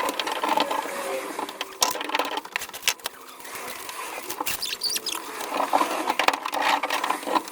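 Irregular clicks, crinkles and light knocks of self-adhesive sound-deadening sheets being handled and pressed onto a van's bare sheet-metal walls.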